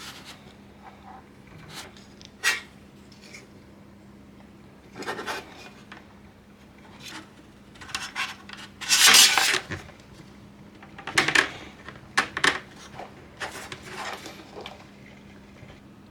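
Metal PC parts and the aluminium case being handled: scattered clicks and clinks with short rubbing scrapes, the loudest a longer scraping rub about nine seconds in.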